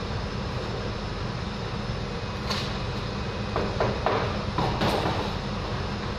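Boxing gloves striking an Everlast heavy punching bag, a string of short thuds that starts about halfway through, over a steady low machinery hum.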